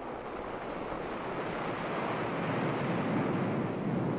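Rushing sound of sea surf, without any pitched tone, fading in and swelling steadily louder through the second half.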